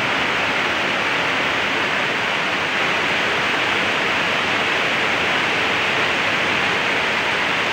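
Steady rushing water noise of a heavy downpour together with a muddy stream in flood pouring over a waterfall.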